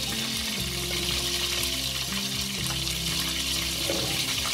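Flour frying in hot oil in a stainless steel pot, a steady sizzle, as a roux begins to cook. Background music with sustained low notes plays underneath.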